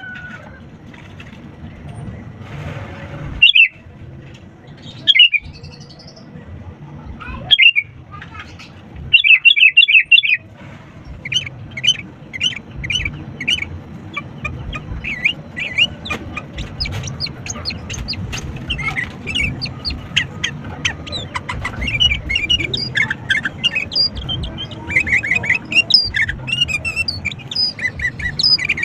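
Sooty-headed bulbul (kutilang) calling vigorously: a few loud separate phrases in the first ten seconds, then a long run of quick chirping and twittering notes, over a steady low background noise.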